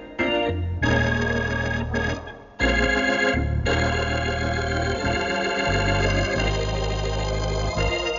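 Hammond organ playing a slow gospel tune in sustained chords over long low bass notes, breaking off briefly twice between phrases.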